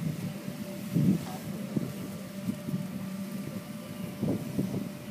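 A steady low motor hum, with wind buffeting the microphone.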